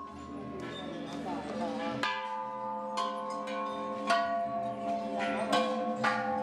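Buddhist temple bells struck one after another, about five strikes in the second half, each ringing on and overlapping the last. They are the temple bells that visitors ring for luck.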